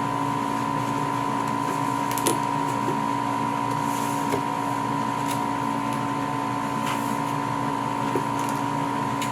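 Steady mechanical hum with two constant tones, one low and one mid-pitched, unchanging throughout, with a few faint light clicks scattered through it.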